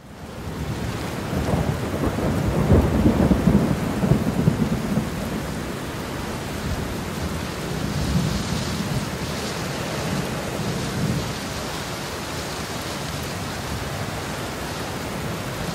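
Thunderstorm: steady rain with low rumbles of thunder. It fades in at the start, and the rumbles swell about two to five seconds in and again about eight to eleven seconds in.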